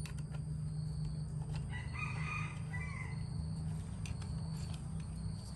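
A rooster crows once, a call of a little over a second near the middle, over a steady low hum. Light metal clicks come as a hex key turns the bolts on the muffler of a small two-stroke engine.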